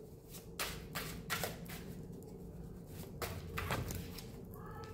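Tarot cards being handled and shuffled: a handful of soft, irregularly spaced card flicks and slaps.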